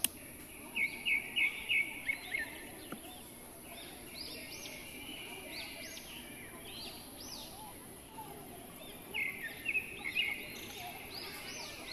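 Small birds chirping and calling, with two bursts of quick repeated notes about a second in and again near the end, over a steady high-pitched hiss. A single sharp click comes right at the start.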